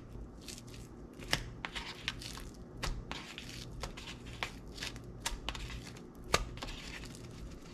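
Hands rubbing and turning raw fish fillets on a paper plate while Old Bay seasoning is shaken from its tin: irregular soft clicks, crinkles and rustles.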